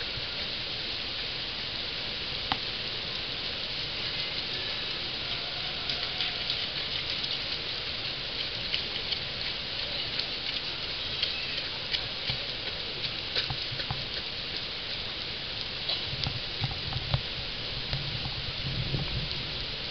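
Heavy rain falling steadily: a dense, even hiss sprinkled with sharp ticks of individual drops, with a few low thuds about three-quarters of the way through.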